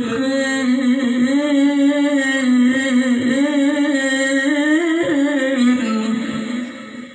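A male qari reciting the Quran in the melodic tilawah style, drawing out one long, ornamented phrase whose pitch wavers up and down, trailing off about six and a half seconds in.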